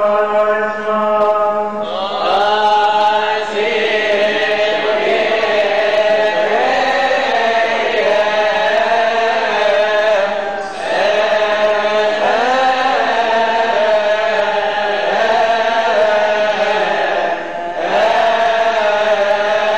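A man's voice chanting the Gospel in the Coptic liturgical style: long, ornamented melismatic lines, with brief pauses for breath about ten and eighteen seconds in.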